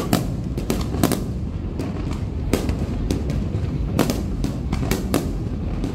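Aerial firework shells bursting in a rapid, irregular series of sharp bangs and crackles over a steady low rumble, with a cluster of bangs about a second in and another about four seconds in.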